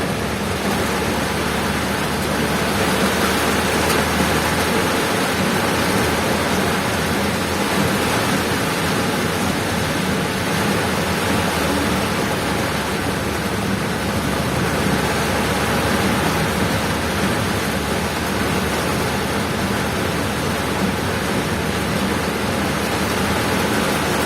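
Heavy rain pouring steadily, an even dense hiss with a low steady rumble underneath.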